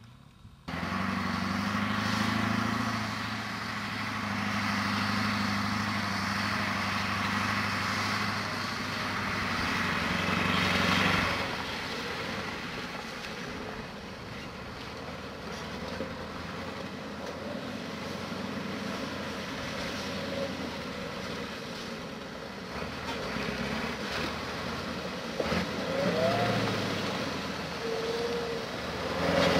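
KamAZ truck's diesel engine running with a steady low hum, starting suddenly just under a second in. About eleven seconds in the sound changes to a rougher engine and road noise as the loaded truck and trailer drive over a gravel road.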